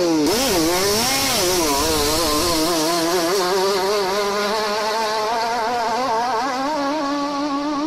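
Narrow speedboat's engine running at full throttle as the boat races off, a loud, steady engine note whose pitch wavers up and down, with a steady hiss over it.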